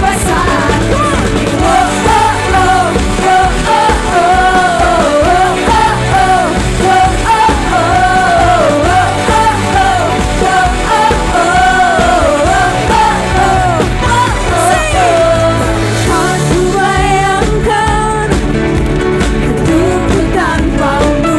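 Live worship band playing an upbeat praise song, with a lead vocal singing the melody over the band.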